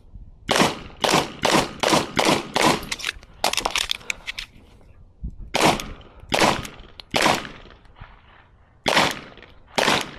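Airsoft pistol firing a timed string: a fast run of about nine shots, then a pause and slower single shots spaced about a second apart.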